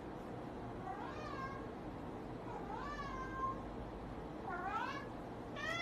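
Domestic cat meowing faintly three times, each call rising in pitch like a question, so that it sounds like 'hello?'. A fourth call begins near the end.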